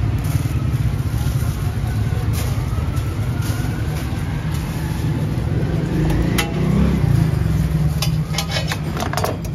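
Steady low rumble of street traffic, with one engine rising slowly in pitch through the middle. Plastic bags crinkle in short bursts near the end as burgers are wrapped.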